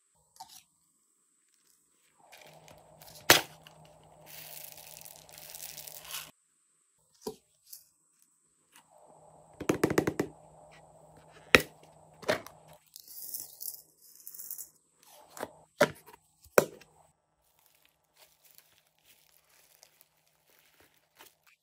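Hard plastic toy containers being handled, with sharp plastic clicks and knocks and stretches of rustling. Near the end, faint crackling as fingers press into slime mixed with foam beads.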